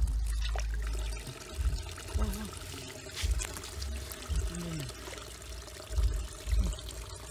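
Water pouring and trickling, with repeated low thumps.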